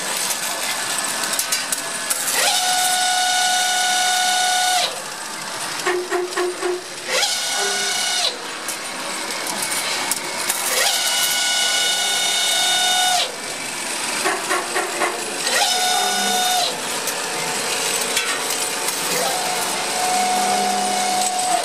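Automated CNC line making Phillips screwdriver bits running: a vibratory bowl feeder rattles and clicks the steel blanks along while a machine whine sounds in spells of one to two seconds, five times over.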